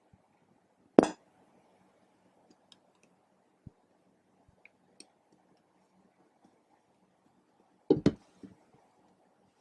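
Hard small objects knocking and clinking against each other or a surface. There is one sharp knock about a second in, a few faint ticks, and a quick double knock near the end.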